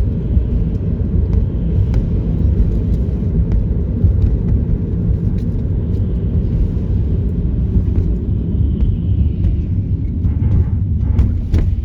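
Steady low rumble of a car driving, heard from inside the cabin, with a few faint clicks near the end.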